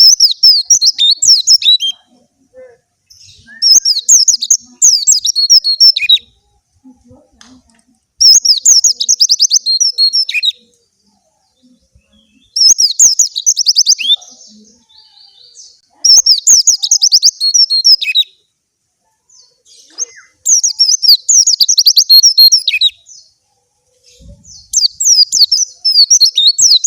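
Young white-eye (pleci) singing: long phrases of rapid, high-pitched chirping notes, each about two seconds long, repeated about every four seconds with short silent gaps between them.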